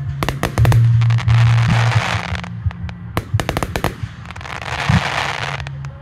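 Aerial fireworks shells bursting in quick clusters of sharp bangs, one cluster just after the start and another about three seconds in. Between the clusters come stretches of crackling hiss from the bursting stars.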